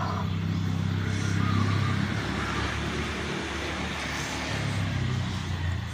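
A steady low engine rumble, as of a motor vehicle running, swelling slightly about a second and a half in and easing toward the end.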